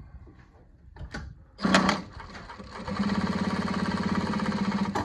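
JUKI DLN-9010A-SH heavy-duty needle-feed lockstitch industrial sewing machine stitching through 16 layers of denim. A short burst of stitching comes about a second and a half in, then steady, rapid stitching from about three seconds in.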